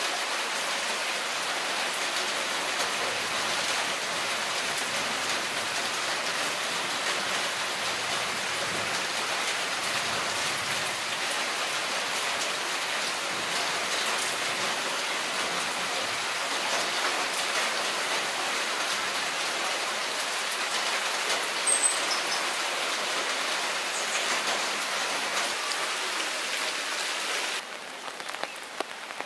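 Steady rain falling through trees, a dense patter of drops, with a brief high chirp about three-quarters of the way in. Near the end it changes to a quieter, sparser patter of rain on open water.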